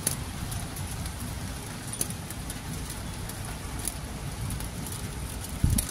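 Steady rain falling, with scattered sharp drip ticks about every second or two over a low rumble, and a brief low bump near the end.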